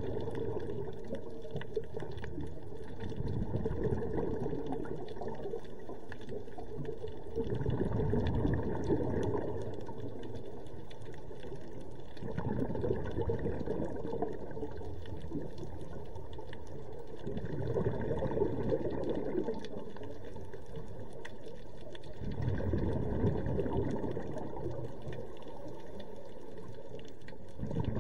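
Scuba diver breathing through a regulator underwater: a bubbly exhalation swells up about every five seconds, with a quieter steady rush between breaths.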